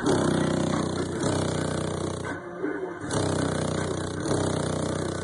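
Bass-heavy music played loud through a truck's car-audio system with two Sundown SA-15 15-inch subwoofers, the low notes coming in phrases of about a second with short breaks between them.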